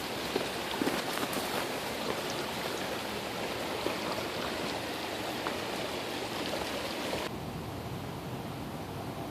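Steady rushing noise with a few faint clicks, cutting off suddenly about seven seconds in to a quieter, duller hiss.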